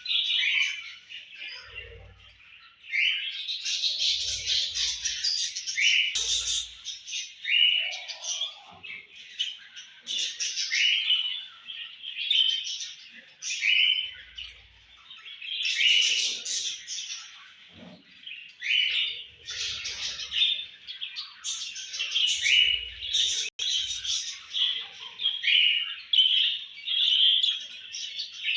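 Budgerigars chirping and warbling continuously, many short rising chirps overlapping, with occasional soft low thumps.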